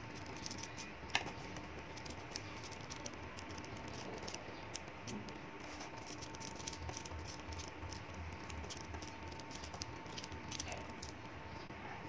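Small magnetic balls clicking and rattling against each other as they are pulled apart and handled, an irregular patter of tiny clicks with one sharper snap about a second in.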